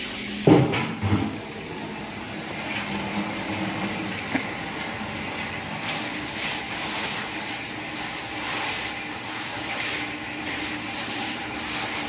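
A stiff-bristled broom scrubbing a soaked rug and wet tiled floor, a wet swishing with each push, over a steady watery hiss. The strokes come harder and more often in the second half.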